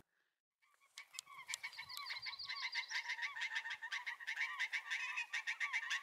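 Blue jays calling in a rapid string of short, repeated calls, several a second, starting about a second in. The pair is upset by other jays nearby.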